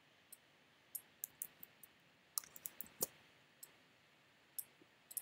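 Faint, sharp clicks of a computer mouse, about a dozen at irregular intervals, bunched together in the middle.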